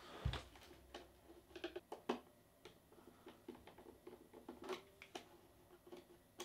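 Small clicks and taps of a screwdriver and jumper wire being worked into the screw terminals of a Nest Heat Link's plastic wiring base, with a soft knock just after the start. The sounds come in short scattered bunches as the terminals between live, 2 and 5 are linked and tightened.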